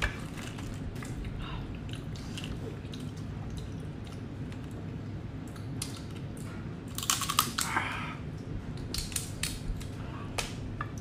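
Shrimp shells being cracked and pulled apart by hand and with the teeth, with eating noises: scattered sharp clicks and a dense run of crackles about seven seconds in.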